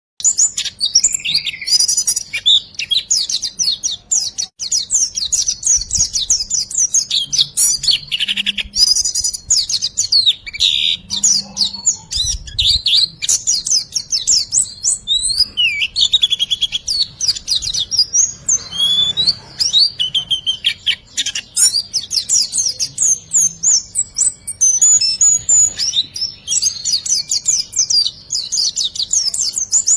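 Recorded songbird song of the 'riwikan' type used as masteran for training caged birds: a dense, nearly unbroken stream of rapid high chirps and trills with only brief pauses.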